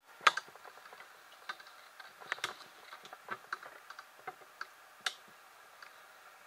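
Irregular sharp clicks and taps from handling a hand-held camera as it is swung about, the loudest about a quarter second in.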